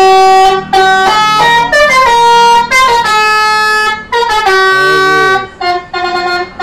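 Bus telolet horn, a Basuri multi-tone musical horn, playing a tune of held notes that change pitch every half second to a second with short breaks between them, ending in shorter toots.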